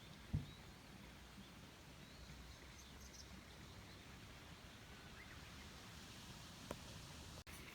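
Quiet outdoor night ambience: a faint steady background with one brief low thump about half a second in and a few faint ticks and chirps later.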